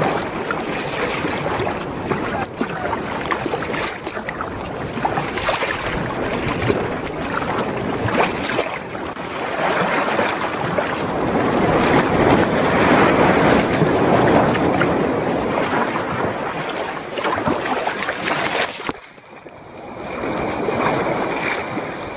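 Choppy sea water splashing and rushing along a sea kayak's hull, with wind buffeting the microphone. It grows loudest as the kayak runs in among breaking surf near the shore, then drops away suddenly near the end.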